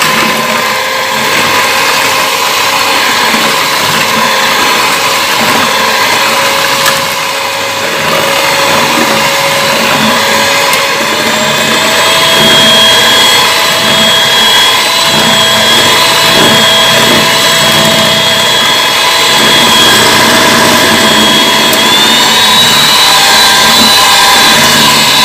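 Handheld electric mixer whirring steadily as its twin beaters whip eggs and sugar into a foam. Its pitch steps up about a third of the way in and again near the end as the speed is switched higher.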